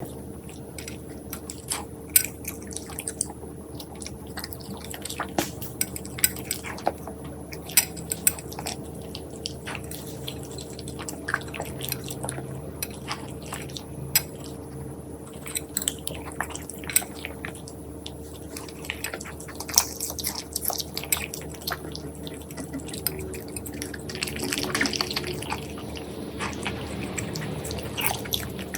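A poodle chewing and crunching choy sum and juicy melon close to the microphone: irregular wet crunches and clicks, some sharper than others, over a steady low hum.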